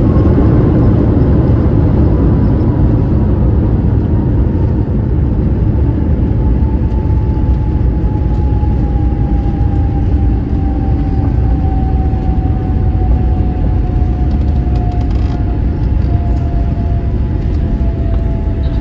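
Inside a jet airliner's cabin as it rolls along the ground after landing: a loud steady rumble of the engines and wheels, with a thin whine slowly falling in pitch as the aircraft slows.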